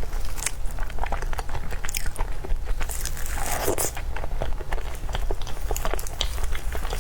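Close-miked eating: chewing of a soft, cream-filled black sesame crêpe, with many small wet mouth clicks and smacks, over a steady low hum.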